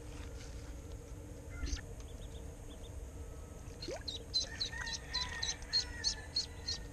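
Live duckling peeping as it dangles on a snakehead fishing line: one peep early, then a quick series of short high peeps, about four a second, from about four seconds in.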